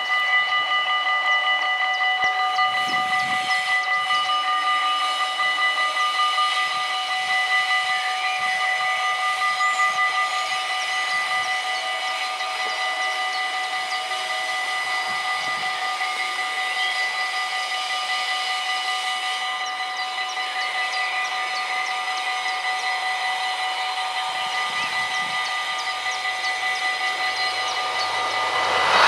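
Electric warning bells of a Dutch automatic half-barrier level crossing ringing continuously, a fast, even ringing at a few fixed pitches, signalling that a train is approaching.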